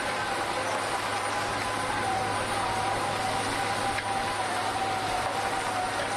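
Piling rig running steadily, an even mechanical drone with a constant whine over a low hum.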